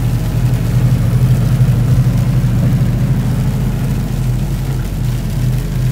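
Semi truck's engine droning steadily at highway speed, with road noise, heard from inside the cab.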